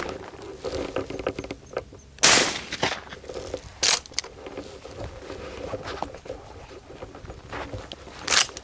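Three shotgun shots fired at doves: a loud blast a couple of seconds in, a second about a second and a half later, and a third near the end.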